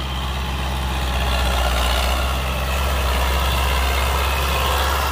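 An old Fiat tractor's diesel engine running steadily and hard as it pulls a rotary tiller through a flooded paddy, a loud even low drone.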